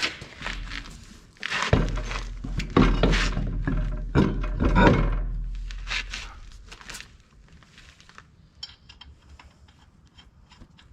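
Heavy metal wheel parts clunking and scraping as they are handled and fitted to the hub, loudest in the first half, then only a few light clicks.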